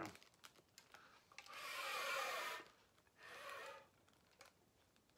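A flute blown through a sealed plastic bag over a face mask: two breathy blasts of rushing air, the first over a second long, the second shorter. Hardly any clear note sounds, only faint traces of pitch under the air noise.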